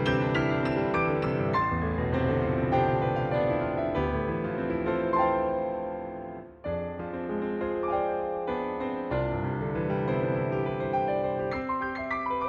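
Garritan CFX virtual piano, sampled from a Yamaha CFX concert grand, playing full chords over a sustained bass. About six and a half seconds in, the sound fades almost away, then a new chord is struck and the playing resumes.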